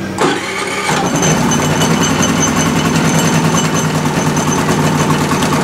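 Predator 3500 inverter generator's single-cylinder engine started on its electric start: a short loud burst of cranking, then it catches about a second in and runs steadily with a thin high whine over the engine note.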